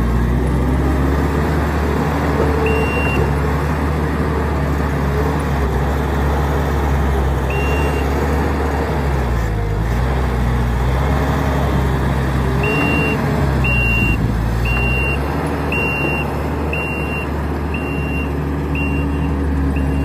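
Kubota SVL90-2 compact track loader's Kubota V3800 four-cylinder diesel running hard as the machine digs and pushes dirt, its engine pitch dipping and rising several times. Its reversing alarm beeps once about three seconds in and again near eight seconds, then about once a second from about thirteen seconds on while the machine backs up.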